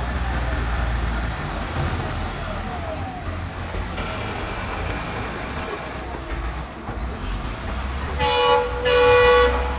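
EMD diesel locomotive climbing a gradient, its engine a steady low rumble under load. Near the end its horn sounds twice, a short blast and then a longer one.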